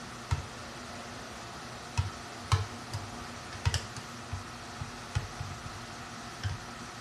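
Metal spatula clicking and scraping against a frying pan's rim and a plate as a fried egg is slid off the pan, about ten light, irregular knocks over a steady background hiss.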